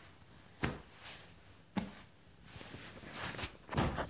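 Soft thumps and fabric rustling as a cushion is grabbed and swung against a sofa: two sharp knocks, the first about half a second in and the second near the two-second mark, then longer rustling and a louder burst near the end.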